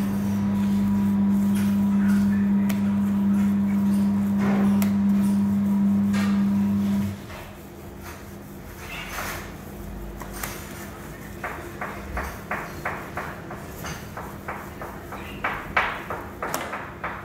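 A machine's steady electrical hum that cuts off suddenly about seven seconds in. After it, minced lamb is kneaded and pressed by gloved hands on a plastic cutting board: short slapping sounds, about three a second.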